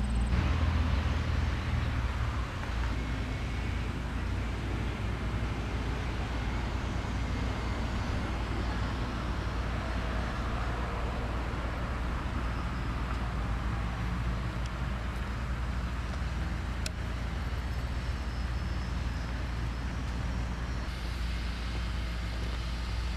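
Steady low rumble and hiss of outdoor background noise, even throughout, with no distinct events.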